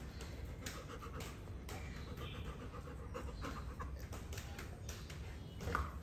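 Dog panting in irregular short breaths, over a low steady hum, with a brief louder sound near the end.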